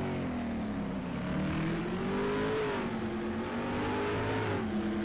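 Car engine revving: its pitch sinks in the first second, climbs to a peak about two and a half seconds in, eases off, climbs again, then drops sharply near the end and settles.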